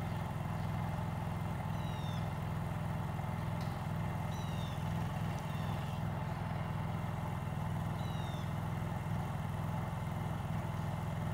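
Honda EU3000is inverter generator running steadily under a light load, only charging a laptop and phones. A few short, high, falling chirps sound over the hum.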